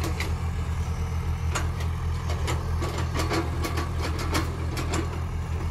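Diesel engines of two Tata Hitachi crawler excavators running steadily while digging and shifting soil, with scattered light knocks throughout.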